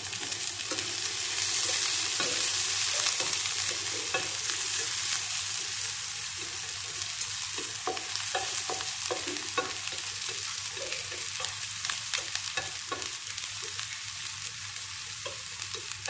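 Chopped onion and browned garlic sizzling in hot oil in a stainless steel frying pan, stirred with a metal utensil that scrapes and clicks against the pan. The sizzle swells loudest a couple of seconds in, then eases, and the stirring clicks come thickest through the middle.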